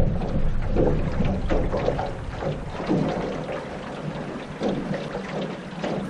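River current lapping and splashing against the hull of an aluminum Grumman solo canoe in irregular slaps, with wind on the microphone.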